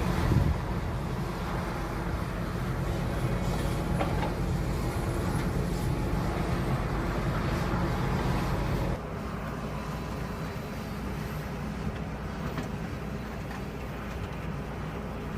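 Diesel engine of a SANY SY365H hydraulic excavator running steadily, with a low rumble. The sound drops to a lower level about nine seconds in.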